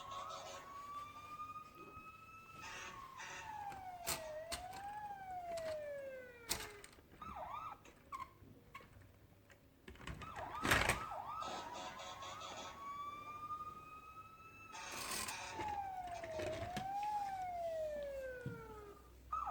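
A siren wailing, its pitch gliding slowly up and then sweeping down twice, with quick warbling yelps at the start, in the middle and at the end. A few sharp knocks come in between, the loudest about eleven seconds in.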